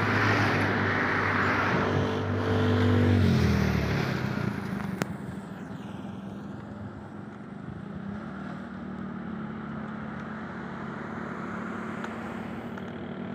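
Motor vehicle engine passing: a steady engine hum, loudest in the first three seconds, drops in pitch as it goes by, then carries on more quietly. A single sharp click about five seconds in.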